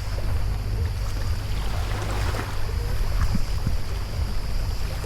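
Wind buffeting the microphone with a heavy, gusting low rumble, over sea water splashing and lapping. A few short splashes come about two and three and a half seconds in.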